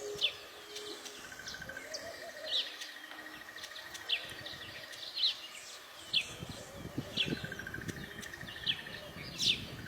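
Weaver birds chirping: short, sharp, falling chirps every second or so, with a brief buzzy trill twice. A low rumble sits under the second half.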